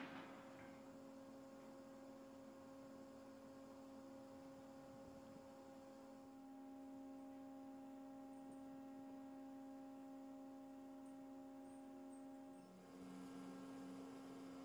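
Faint steady hum of a few fixed tones, with a short click right at the start.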